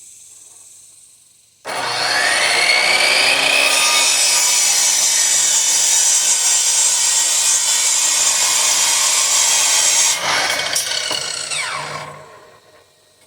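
Electric power saw cutting wood, a 2x4 for the rack. The motor starts suddenly with a rising whine as it spins up, cuts steadily for about eight seconds, then winds down with a falling whine near the end.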